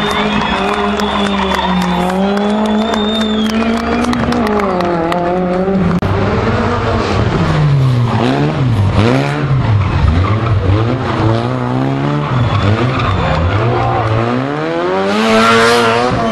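Rally car engines revving hard, their pitch swinging up and down again and again as the cars are thrown into slides, with a high tyre squeal in the first few seconds and a burst of skidding noise near the end.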